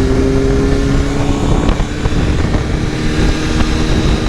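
Motorcycle engine running while riding at a steady speed, its note easing slowly lower, with some wind noise.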